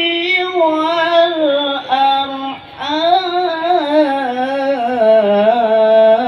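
A reciter's high voice chanting the Qur'an in the melodic qiro'ah (tilawah) style, drawing out long, wavering ornamented notes. There is a short break about two and a half seconds in, and the melody sinks lower near the end.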